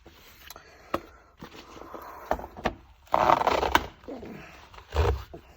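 Handling noise from a Surface Pro 4 keyboard cover being pried and peeled apart: scattered clicks and scrapes, a louder rasping peel a little after three seconds in, and a dull thump about five seconds in.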